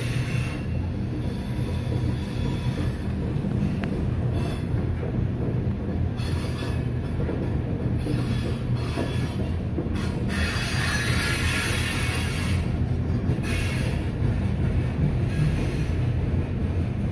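CSX freight train's open-top hopper cars rolling past, a steady rumble of steel wheels on the rails. The wheel noise turns harsher and higher for a few seconds about ten seconds in.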